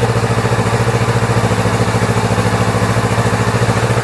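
Kawasaki Z650's parallel-twin engine idling steadily with an even pulse, moments after starting, running with its air-injection (pair) valve removed and block-off plates fitted.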